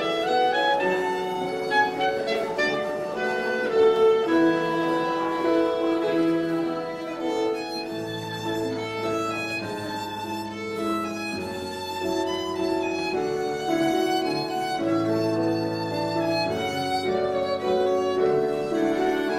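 Fiddle-led dance music, a tune for English country dancing, with a steady melody over long held bass notes that change every couple of seconds.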